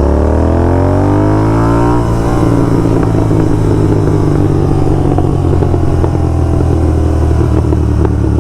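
Royal Enfield GT650's 648 cc parallel twin, fitted with only a slip-on exhaust and no ECU tune, accelerates with its pitch rising for about two seconds. The throttle then closes and the engine runs down on the overrun with a continuous stream of exhaust crackles and pops.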